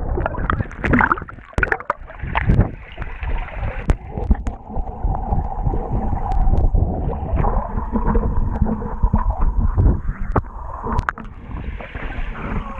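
Water sloshing and bubbling as heard by a camera held underwater, muffled and heavy in the low end, with many short clicks and knocks from the water and the camera housing.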